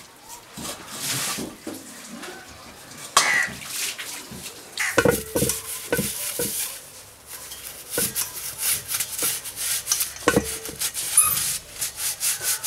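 A cloth rubbing over metal gas-stove parts and a steel LPG cylinder in short repeated strokes, with a few ringing metal clanks as the stove parts are moved, about five seconds in and again near ten seconds.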